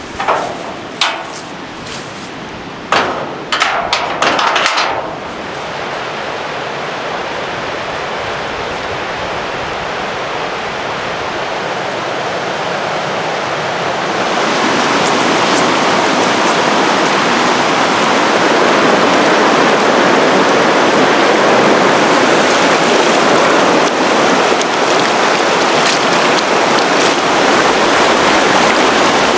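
Shallow mountain stream rushing over stones: a steady water noise that grows louder and steps up about halfway through, then stays loud. A few sharp knocks and rustles in the first five seconds.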